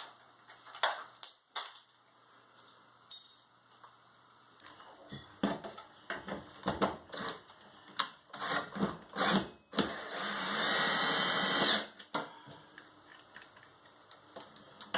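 Cordless right-angle drill running for about two seconds, after a run of clicks and knocks of tool and hardware handling.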